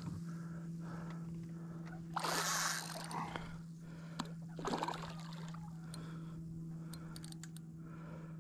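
Hooked redfish splashing and thrashing at the surface beside a small boat during the fight, with two louder splashes about two and five seconds in, over a steady low hum.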